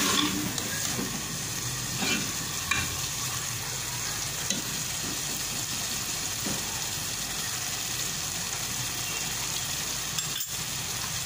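White chickpeas frying in a thick tomato masala in a metal pot, sizzling steadily as the masala is roasted (bhunai). In the first few seconds a steel ladle stirs and scrapes against the pot, with an odd knock later.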